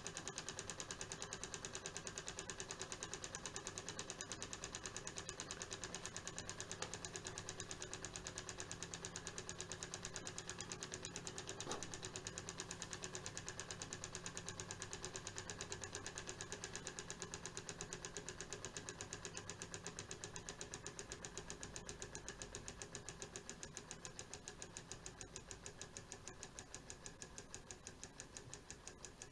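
Small tealight-heated model Stirling engine (Stirling 60) running with a fast, even mechanical ticking from its piston and linkage. The ticking gradually slows and fades toward the end as the engine coasts down, its candle flame gone out.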